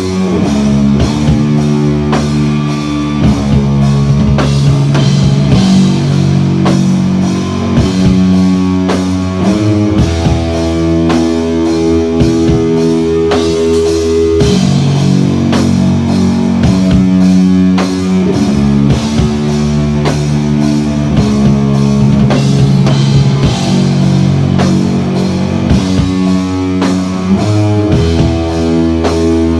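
Live rock band playing an instrumental passage: distorted-sounding electric guitar chords held and changed in a repeating cycle over a steady drum kit beat, with no singing.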